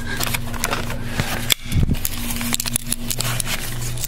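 Metallic clicking and clatter from a half-inch ratchet with a socket adapter straining on a pitman arm puller. About a second and a half in comes a sudden sharp crack and a heavy jolt as the adapter snaps under the load, then loose metal parts click and clatter.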